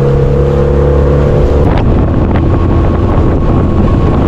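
Motorboat engine running steadily under way, with wind buffeting the microphone; the engine note changes about a second and a half in.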